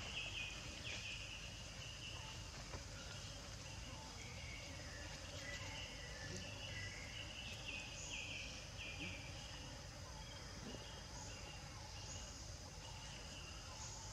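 Outdoor background of insects buzzing steadily, with short bird chirps coming in clusters near the start and again through the middle, over a low rumble.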